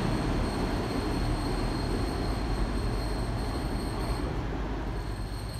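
Class 158 diesel multiple unit moving away along the platform: the steady running of its underfloor diesel engines and wheels on the track, gradually fading as it draws off.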